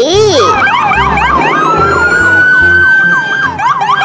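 Ambulance siren in a fast up-and-down yelp, two sweeping tones crossing each other, broken in the middle by one long, slowly rising wail before the rapid yelp resumes.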